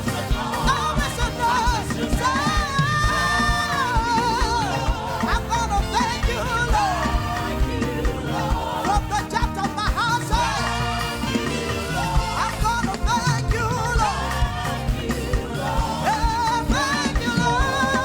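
Gospel praise-and-worship music from a church band, with singing over a steady beat.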